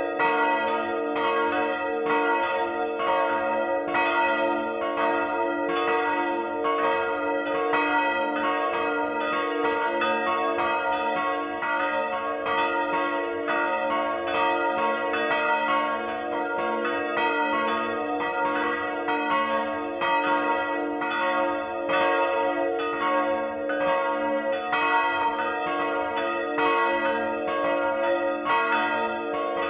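Church bells from a peal of three bronze bells (two Rincker bells of 1952 and a Johann Peter Bach bell of 1759) swinging and ringing together, heard close up in the bell tower. Overlapping clapper strokes come several times a second over a steady ringing hum.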